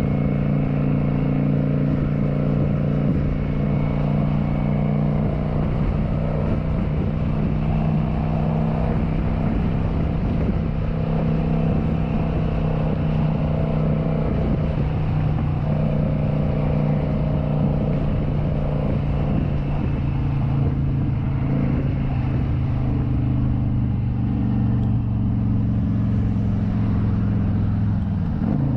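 Kawasaki Vulcan 900's V-twin engine running steadily at road speed, its note easing down slightly about two-thirds of the way through.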